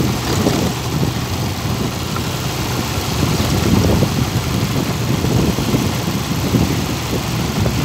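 A vehicle's engine running steadily while moving along a dirt road, with a continuous low rumble of road noise.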